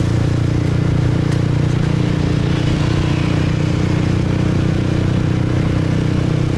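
Yamaha MT-15 single-cylinder motorcycle engine running at a steady, even cruise, heard from the rider's seat.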